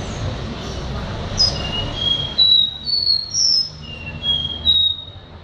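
Caboclinho, a small Brazilian seedeater, singing in a cage: a run of short, clear whistled notes at changing pitch, starting about a second and a half in, over a low steady background noise.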